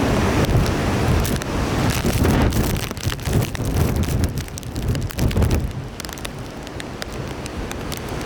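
Typhoon wind buffeting the microphone, with wind-driven rain striking in many small ticks. It eases somewhat about six seconds in.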